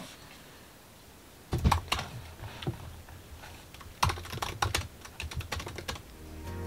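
Typing on a laptop keyboard: bursts of key clicks about a second and a half in and again from about four seconds, with a quiet pause between.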